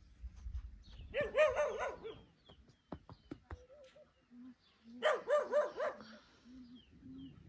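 An animal calling twice, about four seconds apart, each call a quick wavering series about a second long, with fainter, lower calls in between.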